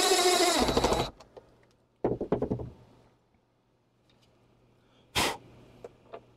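Cordless driver running in a screw that holds a robot vacuum's side brush: a whirring burst of about a second, its pitch dropping as the screw tightens, then a second shorter burst about two seconds in. Near the end a short clatter and a few light clicks of plastic parts being handled.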